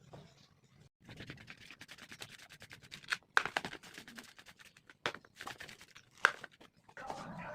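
Fast, dense scratching and clicking from kitchen work, starting about a second in, with a few sharper knocks.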